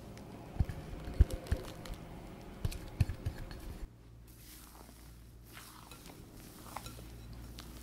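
Bowl and spatula knocking and tapping against a glass mixing bowl, several low knocks in quick succession, as melted butter and milk are poured over a spatula into whipped castella batter. About four seconds in the sound drops suddenly to faint scattered clicks of the spatula folding the thick batter.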